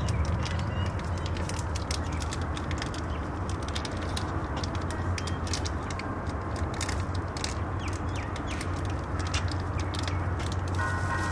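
Steady outdoor background noise with a low hum and scattered crackles and clicks; a few faint short chirps.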